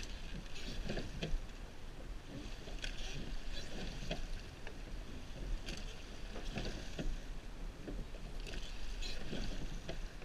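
Surf boat being rowed by its crew: about every three seconds an oar stroke brings a rush and splash of water with a few knocks of the oars in their rowlocks, over a steady low rumble of wind on the microphone.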